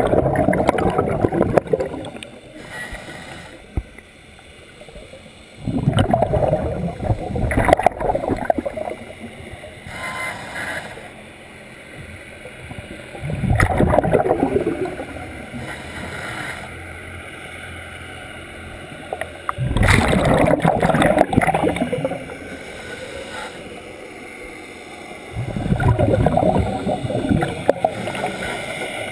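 Scuba regulator breathing underwater: five gurgling bursts of exhaled bubbles, each two to three seconds long and about six seconds apart, with a fainter hiss of inhalation between them.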